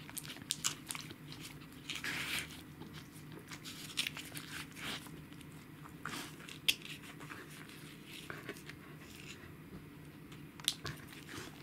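Pembroke Welsh corgi licking and chewing medicine out of a small plastic cup held in a hand: a run of irregular wet smacks and mouth clicks, with a few sharper clicks standing out.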